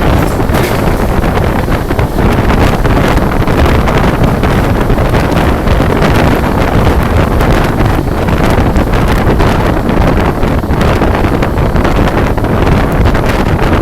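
Steady rush of wind buffeting the microphone over the rumble of a passenger train running at full speed, heard from on board.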